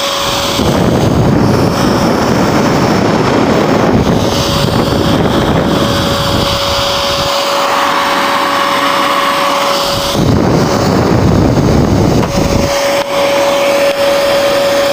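Dell Optiplex GX280's cooling fan running flat out with a loud jet-like rush and a steady high whine. This is the fan racing on a faulty motherboard that won't boot, with the power light orange.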